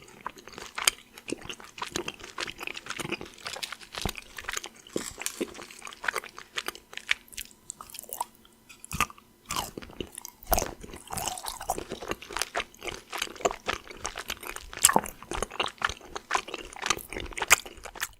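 Close-up chewing of a Mon Chérie, a chocolate with a liqueur-soaked cherry inside: many irregular sharp crunches and wet mouth clicks, with short pauses between bites.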